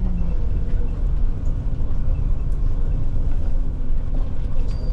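Solaris Urbino IV 12 city bus heard from inside the passenger cabin while driving: a steady low rumble of the drivetrain and road noise, with a faint hum. A short high beep sounds near the end.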